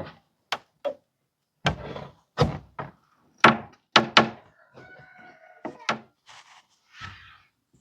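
Wooden siding boards knocking and clunking as they are handled and pried, a string of separate sharp knocks, with a short squeaky scrape around the middle.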